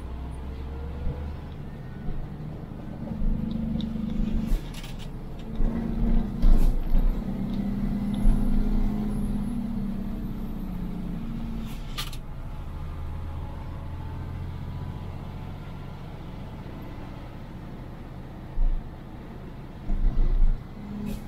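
Road vehicle driving downhill on a mountain road: steady engine and road rumble, with the engine note strongest for several seconds in the middle. There are a few sharp knocks, and short loud bumps near the end.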